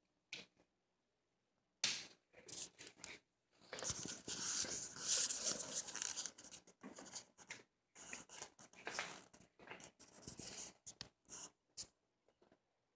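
Quiet, irregular rustling and scraping from hands handling small objects, with a few small clicks. It is loudest for a couple of seconds about four seconds in.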